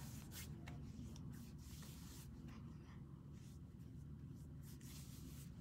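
Faint rubbing of fingertips and palms on facial skin, massaging in a facial oil: soft, scattered swishes over a low steady hum.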